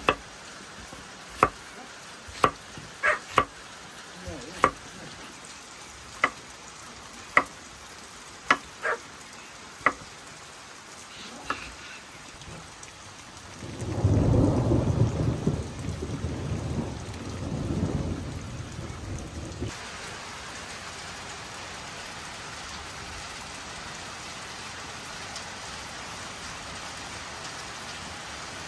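Steady rain, with about a dozen sharp, irregular taps over the first ten seconds or so. Then a roll of thunder rumbles for about five seconds, swelling again before it dies away, and steady rain continues.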